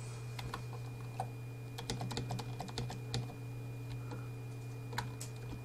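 Computer keyboard keys being pressed, irregular clicking keystrokes with a busier flurry in the middle, entering notes into a music editor, over a steady low hum.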